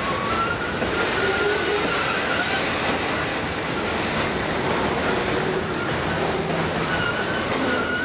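Freight train of loaded flatcars rolling past, steel wheels running on the rails with a steady rumble and a wavering wheel squeal that comes and goes.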